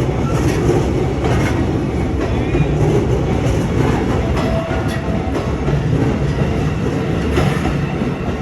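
A train running past a level crossing, a loud steady rumble broken by a few clacks of the wheels over rail joints.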